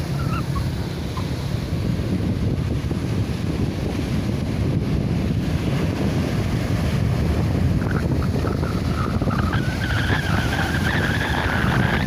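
Wind buffeting the microphone over the steady wash of sea waves on the shore. Past the middle, a thin wavering high-pitched whine comes in and grows louder.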